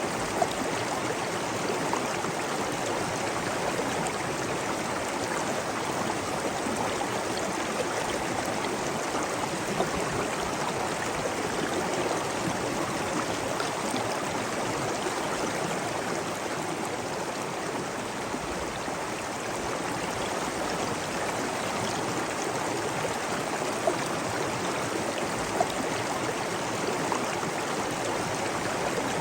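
Steady rushing water, like a stream or waterfall pouring without pause, with a few brief splashes standing out now and then.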